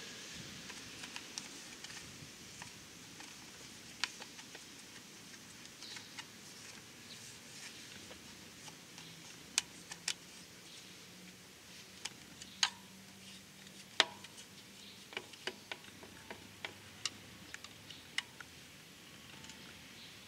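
Scattered small clicks and taps of plastic and metal as a motorcycle headlight unit is handled and its bulb socket worked at, coming irregularly, with a sharper snap about fourteen seconds in.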